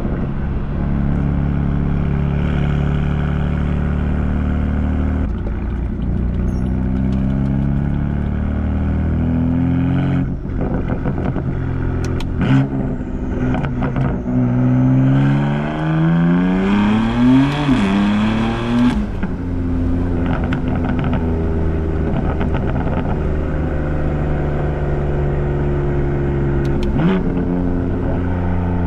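BMW M4's S55 twin-turbo straight-six running through catless resonated downpipes and the stock muffler, holding a steady cruise, then revving up hard a few times past the middle, the pitch climbing before dropping back to a steady drone.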